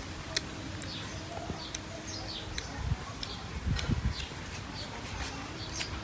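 Small birds chirping in the background, short high notes repeating, with light clicks and a few low thumps in the middle.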